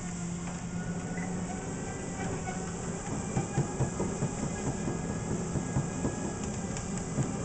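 Treadmill running with a skateboard rolling on its moving belt: a steady motor hum and the rumble of the wheels, with a run of irregular clacks from about three seconds in.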